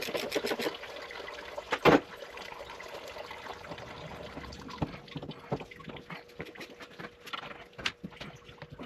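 Water draining steadily from the cooling-system drain petcock into a drain pan, with one sharp knock about two seconds in and scattered light clicks and knocks later.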